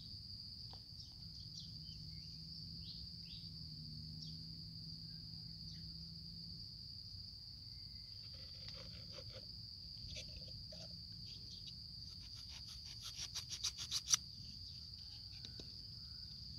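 A steady high insect trill runs under faint crunching and scraping as a small kitchen knife cuts through a block of dry floral foam, with a quick run of louder crisp clicks near the end.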